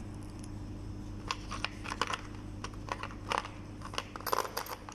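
Small metal screwdriver bits and sockets clicking against each other and the plastic tool case as they are handled: scattered sharp clicks, bunching together near the end, over a steady low hum.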